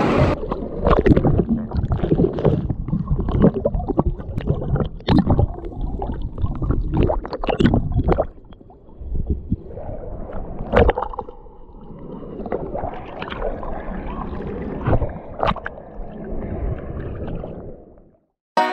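Shallow seawater splashing and sloshing close to the microphone as a hooked tarpon is held in the surf and let go, with many sharp knocks and slaps. From about eight seconds in the sound turns quieter and muffled, heard from under the water, and it cuts off just before the end.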